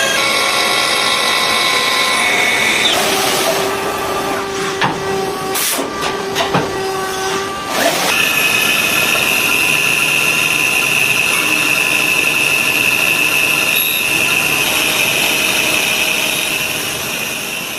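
CNC machine tool running: a steady mechanical whine over a hiss, with a few sharp clicks and knocks in the middle, then changing to one strong, higher whine about eight seconds in.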